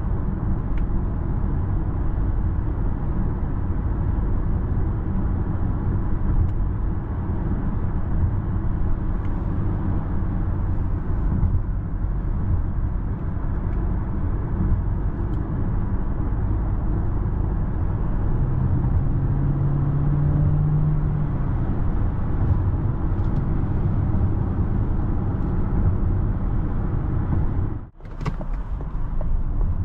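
Steady road and tyre noise inside the cabin of a Citroen C5 X plug-in hybrid cruising at motorway speed, about 100 km/h. A low hum comes in for a few seconds in the middle, and the sound drops out for a moment near the end.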